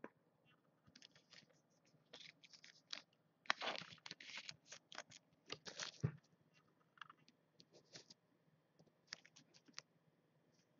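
Faint scraping, crinkling and clicking of a trading card being handled, in scattered short bursts that are densest about midway.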